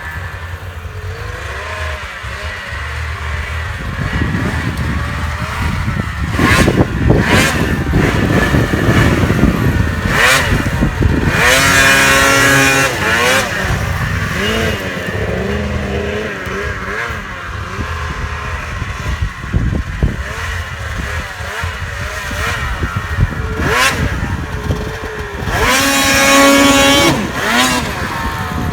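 Snowmobile engine running and revving hard again and again, its pitch climbing and falling, with two long high-revving pulls, one about twelve seconds in and one near the end.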